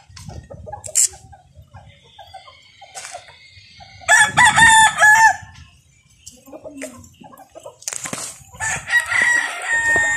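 A rooster crows loudly once, about four seconds in, a call of a little over a second. More rooster calling follows near the end, weaker.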